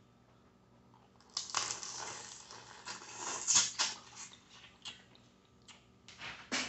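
Sucking and slurping on a boiled crawfish: a loud, hissing slurp starting about a second and a half in and lasting a couple of seconds, then a few small clicks of shell and another short slurp near the end.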